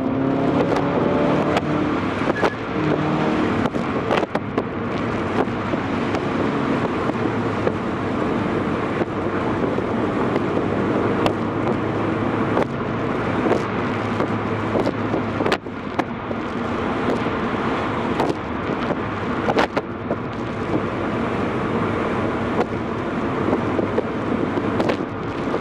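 Subaru Impreza's FB20 flat-four engine running under way, with steady road noise, heard inside the cabin. A few sharp knocks come through here and there.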